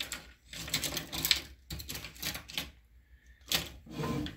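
Small tools clattering and clicking as a hand rummages through them: irregular sharp clacks, the loudest about a second in and again around three and a half seconds.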